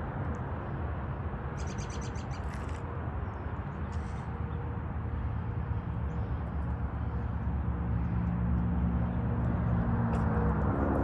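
Wind buffeting the microphone in a steady low rumble. A bird gives a quick rapid chirping about two seconds in, and a low hum swells near the end.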